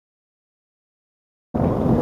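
Silence, then about one and a half seconds in, GAZ-51 trucks' six-cylinder engines running hard in a race cut in suddenly and loudly.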